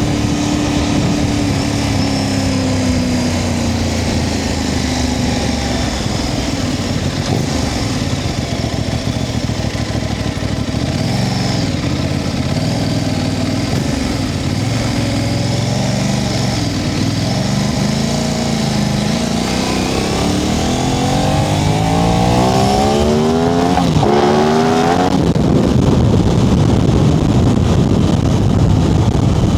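Aprilia RS660's 659 cc parallel-twin engine under way: its pitch falls as the bike eases off, wavers through the middle, then climbs steeply under acceleration for about five seconds near the end, after which a steady rush of noise takes over.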